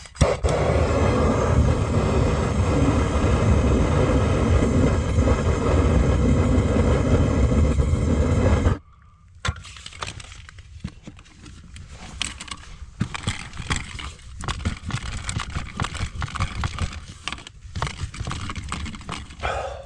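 Small handheld torch burning steadily as it heats the inside of a black poly well line to soften it, then shutting off suddenly about nine seconds in. After that come scattered clicks and scrapes as the softened pipe, with two hose clamps on it, is worked onto the brass barbed fitting of the pitless adapter.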